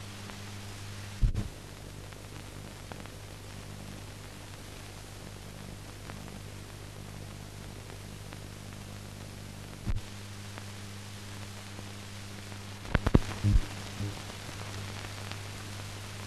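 No recorded sound, only the noise of a silent film transfer: steady hiss and a low electrical hum. A sharp click comes about a second in, another near ten seconds, and a cluster of clicks and pops about thirteen to fourteen seconds in.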